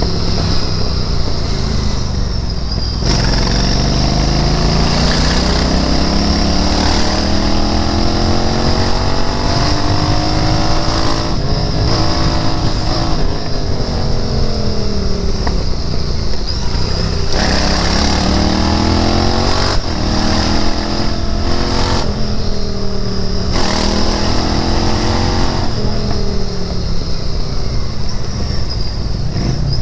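Royal Enfield Interceptor 650's 648 cc parallel-twin engine pulling through the gears: the revs climb and drop back at each upshift, ease off and fall away around the middle, then climb again through several quick shifts before easing off near the end.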